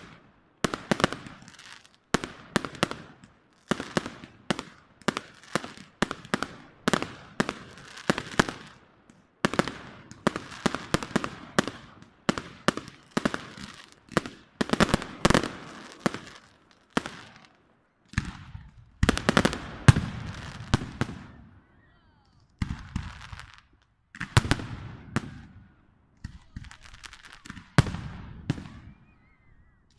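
Aerial fireworks display: a rapid, almost continuous run of shell bursts and bangs, easing off for a moment a few times in the second half.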